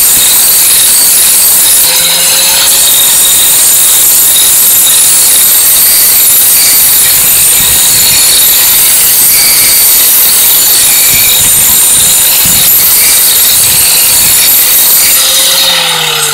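Handheld angle grinder's abrasive disc grinding the steel edge of a lawnmower blade to sharpen it, a loud, steady, harsh grinding. Near the end the grinder is switched off and its whine falls in pitch as the disc spins down.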